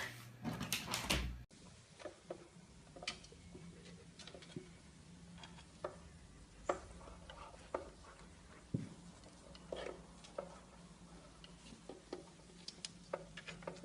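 Faint, scattered light taps and clicks over a low steady room hum.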